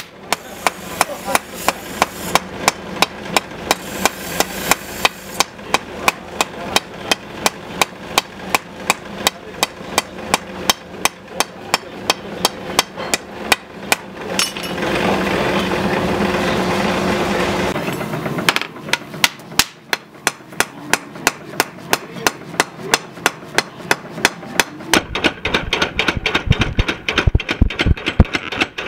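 Hammer blows on red-hot knife steel on an anvil, a steady rhythm of about three ringing strikes a second. Midway the strikes stop for a few seconds of steady rushing noise. Near the end they resume with heavier, deeper blows.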